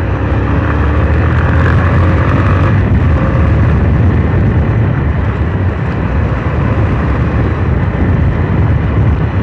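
Motorcycle on the move: its engine running under a steady, heavy rumble of wind on the microphone.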